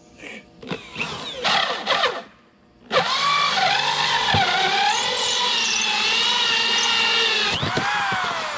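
Handheld power drill boring into a wooden tabletop: a few short bursts in the first two seconds, then after a brief pause a long run of about four and a half seconds whose pitch wavers as the bit takes load, winding down with a falling whine near the end.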